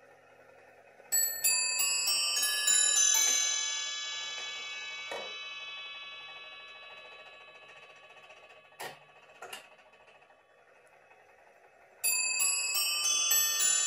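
Nineteenth-century bracket clock chiming on its bells as the minute hand is turned forward: a quick run of about eight struck notes starts about a second in and rings away over a few seconds. A few knocks and clicks follow, and near the end a second chime run begins.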